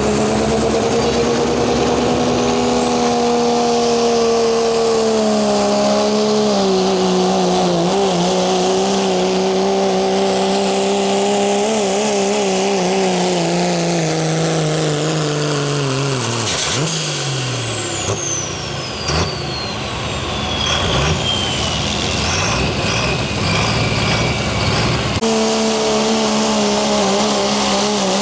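Turbocharged diesel pulling truck at full throttle dragging a weight-transfer sled, its engine note slowly sinking as the load builds. About two-thirds of the way in the engine drops off and a high turbo whistle falls steadily in pitch for several seconds. Near the end another diesel truck's engine starts up steady.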